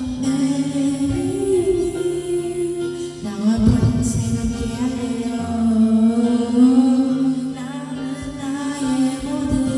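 A young woman singing a Korean love ballad into a karaoke microphone, holding long notes over a backing track with sustained bass notes.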